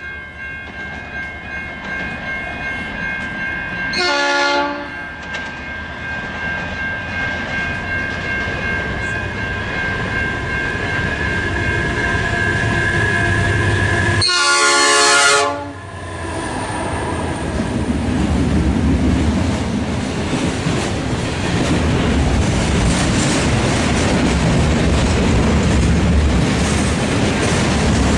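A diesel freight locomotive, G528, sounds its multi-tone horn twice: a short blast about four seconds in and a longer one about fourteen seconds in. The freight train then rolls past with a steady rumble and clattering wheels.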